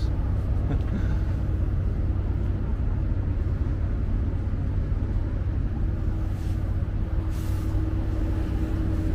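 Steady low rumble of city background noise, with a steady hum underneath that grows a little stronger near the end.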